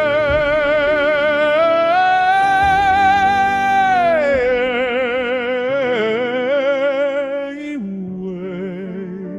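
Operatic singing: a high voice with heavy vibrato holding long notes over sustained lower accompaniment. It steps up in pitch about two seconds in, holds, then slides back down, and softens near the end.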